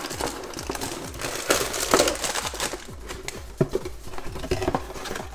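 Cardboard box and printed paper inserts rustling, scraping and knocking as a toy robot kit is unpacked by hand. The handling is busier in the first three seconds and then quieter.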